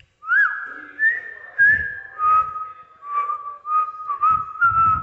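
A boy whistling a tune through pursed lips. It opens with a quick upward slide into a long higher note, then runs on as a series of shorter, lower notes. Puffs of breath hit the microphone under some of the notes.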